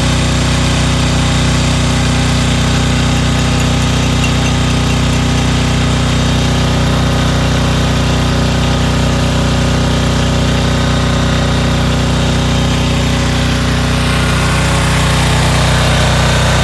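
Welding machine running with a steady low hum that swells and fades about once a second, over a steady hiss.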